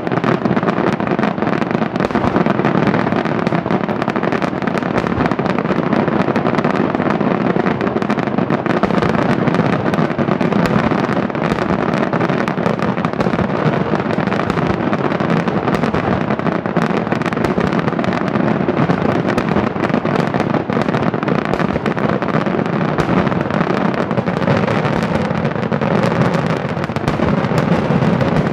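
Daytime fireworks: a dense, unbroken barrage of aerial shell bursts and firecracker bangs, the reports so rapid that they run together.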